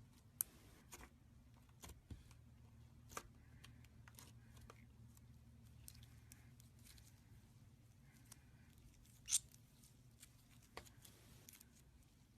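Gold slime being handled: scattered soft clicks and small pops at irregular moments, the loudest about nine seconds in, over a faint steady hum.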